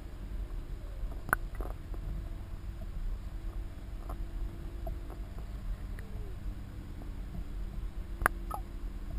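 Steady low underwater rumble picked up by a submerged camera, with two sharp clicks, one about a second in and one near the end.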